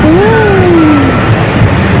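Background music, with one sliding note that rises and then falls away over about the first second.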